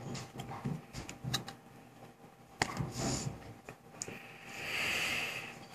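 Trading cards being handled and slid across one another: light clicks and scrapes, then a longer soft rustle near the end.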